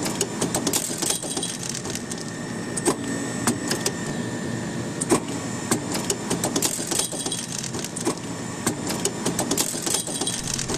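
Babyplast micro-injection molding machine running with its sprue separator's motor-driven spindle turning: a steady mechanical hum with a faint high whine, broken by irregular clusters of light, sharp clicks.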